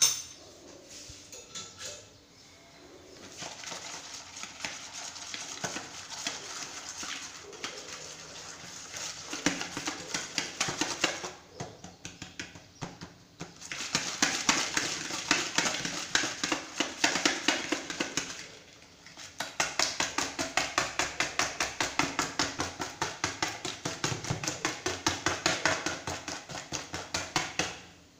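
Wire balloon whisk beating eggs in a plastic bowl by hand: fast, even strokes of the metal wires clicking against the bowl. The whisking stops briefly twice.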